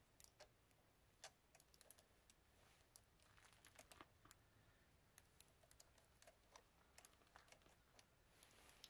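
Near silence with faint, irregular small clicks and crackles from a leafy sauna whisk's twigs being handled over a pot of water.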